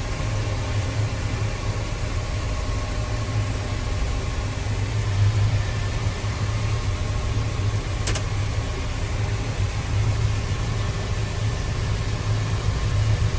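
Tractor's diesel engine running steadily, heard from inside the cab, with one short sharp click about eight seconds in.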